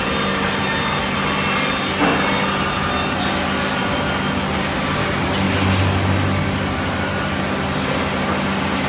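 Woodmaster CNC band saw running with a steady hum as a stack of wood blanks is fed through and cut. There is a short knock about two seconds in, and the hum swells deeper for a moment just before the middle-to-late part.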